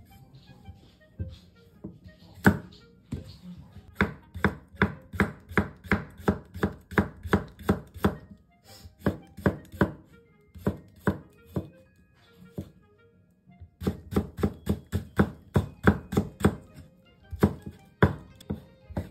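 Kitchen knife slicing cucumber on a wooden cutting board: a few scattered cuts, then a fast, even run of knife strikes on the board, about three to four a second, which stops briefly and then starts again.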